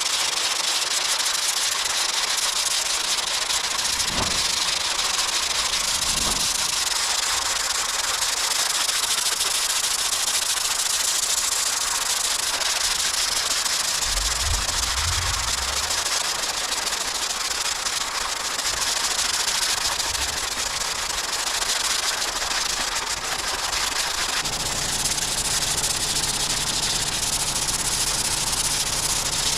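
Body filler on a car bonnet being sanded: a steady, unbroken hiss, with a low hum joining in near the end.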